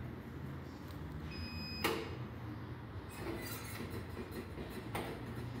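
Face-recognition turnstile giving a short high electronic beep, followed at once by a sharp mechanical click, then softer clatters and another click near the end, over a steady low hum.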